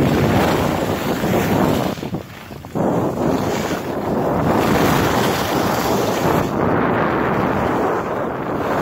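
Wind rushing over the microphone of a skier's camera during a downhill run, mixed with skis sliding over snow. The rush drops away briefly about two seconds in, then comes back.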